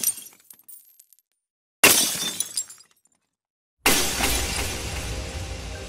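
Glass-shattering sound effects: the tail of one crash with shards tinkling away, a second sudden crash about two seconds in, and a third, heavier crash with a deep boom about four seconds in that rings on in sustained tones.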